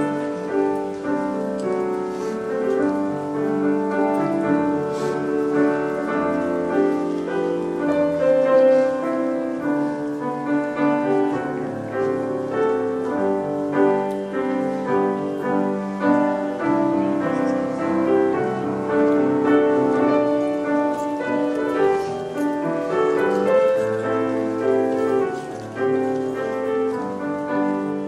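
Piano music, with held chords under a melody that moves note by note.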